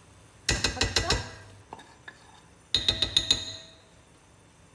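A small garlic mortar knocked repeatedly against the rim of a cooking pot to shake out crushed garlic. There are two quick runs of about half a dozen clinking knocks each, about two seconds apart.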